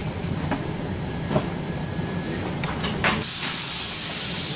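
Regional train carriage standing at a station: a low steady rumble with a few light clicks, then about three seconds in a sudden, loud, steady hiss of compressed air being let out of the train's pneumatic system.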